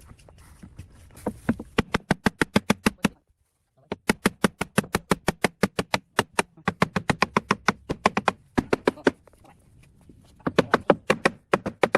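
Rapid, even knocking, about six or seven sharp strikes a second, in runs of one to two seconds with short breaks.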